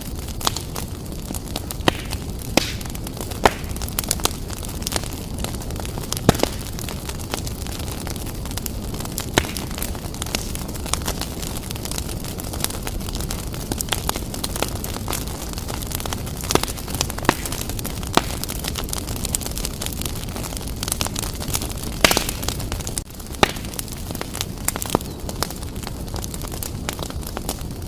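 Fireplace fire burning briskly: a steady low rumble of flames with irregular crackles and pops. The sharpest pops come about six seconds in and again a little after twenty seconds.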